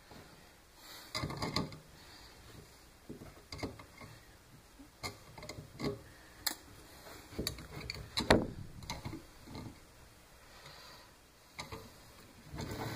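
Irregular knocks, clicks and scrapes of small parts and tools being handled on a wooden workbench, with the loudest, sharpest knock about eight seconds in.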